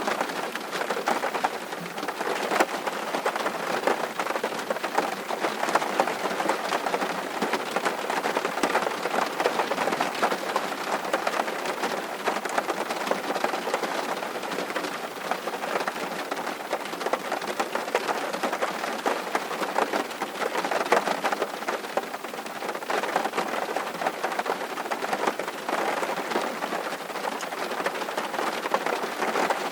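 Steady rain, a dense, even patter of many small drops with no pauses or loud single events.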